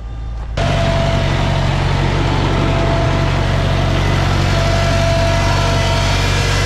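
A vehicle engine running steadily at a constant speed, cutting in abruptly about half a second in.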